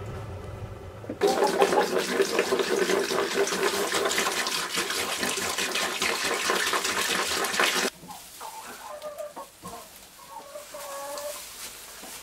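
A pickup truck engine idling for about the first second. Then water is poured from a jug into a bowl for several seconds, with chickens clucking in the coop. After the pouring stops, quieter clucking goes on.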